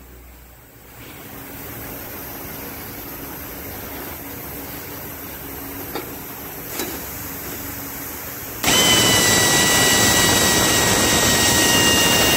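Pneumatic drilling unit: a low steady hiss of compressed air with two light clicks, then about three-quarters of the way through the drill's impeller-driven air motor starts suddenly and runs loud, a steady rush of exhaust air with a high whine.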